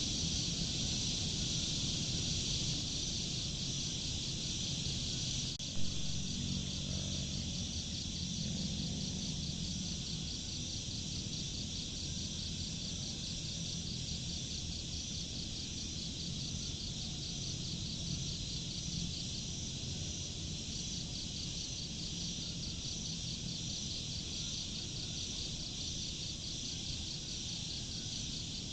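Steady chorus of insects trilling in rapid, even pulses over a low background rumble, with one short sharp click about six seconds in.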